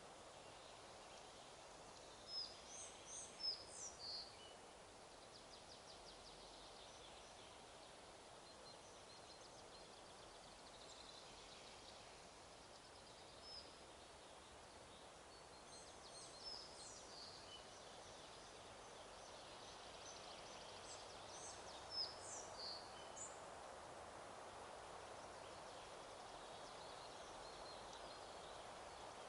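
Faint forest ambience: a steady hiss of wind, with small birds calling in short clusters of high chirps about two seconds in, around sixteen seconds, and again around twenty-two seconds.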